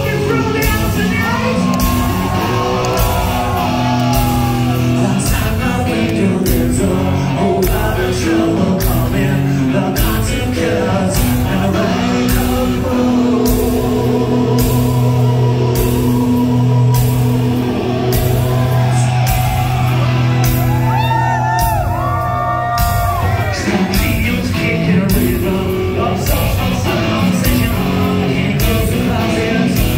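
Live hard rock band playing loudly, heard from within the crowd in a large hall: a steady drum beat, distorted electric guitars and a male singer. About twenty-one seconds in come high sliding notes that rise and fall.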